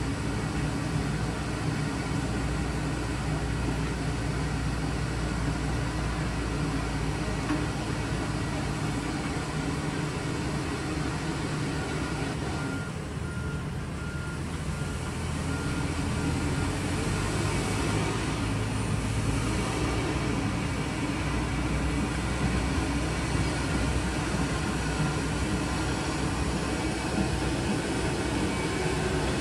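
Diesel engines of road-milling machinery, a Wirtgen cold milling machine among them, running steadily, with a street sweeper truck driving past partway through. A backup alarm beeps briefly about halfway through.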